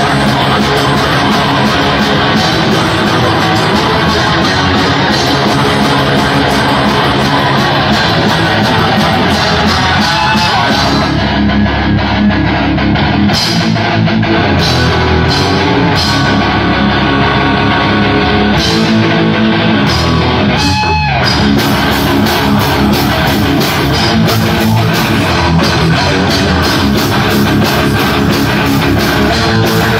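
A live heavy metal band playing loud, with distorted electric guitars and a drum kit. The cymbals drop out for a stretch in the middle and come back with rapid hits after a sliding note about 21 seconds in.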